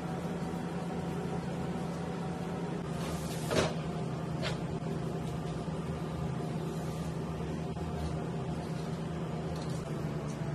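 Steady hum of kitchen machinery, with one sharp knock about three and a half seconds in and a lighter tick about a second later.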